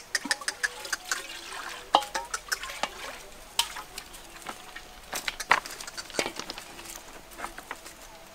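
Irregular clicks and clattering knocks: footsteps on loose river stones and a bowl knocking as it is filled and carried, with two louder knocks about two seconds and five and a half seconds in.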